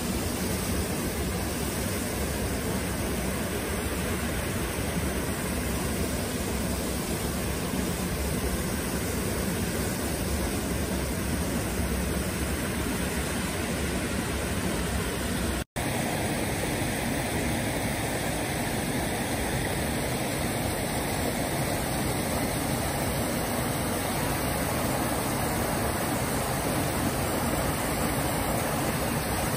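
Rushing mountain river tumbling over rocks and a small waterfall: a steady, loud rush of white water. It is broken once by a split-second dropout about halfway through.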